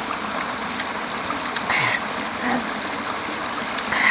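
Steady rush of a shallow rocky stream, with a few short mouth sounds from eating. The loudest comes near the end as a bite is taken.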